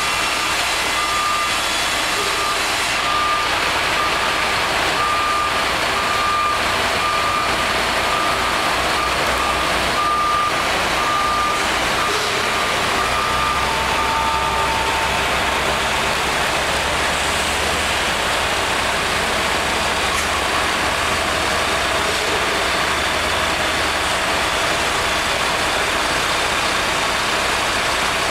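Mobile crane's diesel engine running steadily under load during a lift, with a reversing alarm beeping at a steady even pace over it that stops about halfway through.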